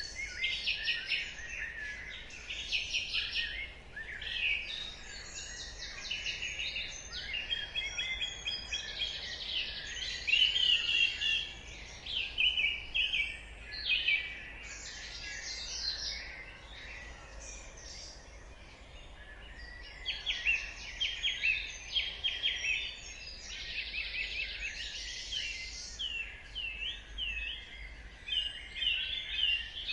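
Dawn chorus of several songbirds singing at once: overlapping high chirps, trills and quick runs of notes, thinning out for a few seconds in the middle before picking up again.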